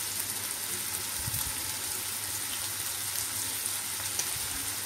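Chopped onions and tomatoes frying in oil in a non-stick pan: a steady sizzle with a few faint crackles.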